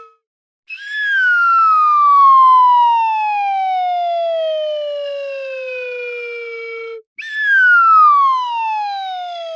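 Slide whistle playing two long, slow downward slides. The first falls steadily for about six seconds, and the second starts right after it and is still falling at the end.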